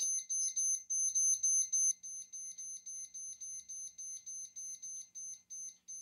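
Luvele yogurt maker's control panel beeping rapidly while the plus button is held, the fermentation-time setting counting up to 36 hours. After about two seconds the beeps come faster and quieter, then stop when the button is let go.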